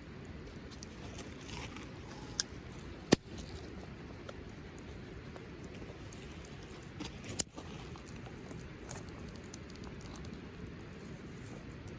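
A few sharp snaps or clicks, the loudest about three seconds in and another about seven and a half seconds in, with scattered small ticks over a steady low rumble.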